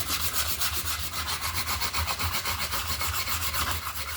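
Hand sanding of elm wood with 120-grit sandpaper: quick, even back-and-forth scrubbing strokes that stop abruptly at the end.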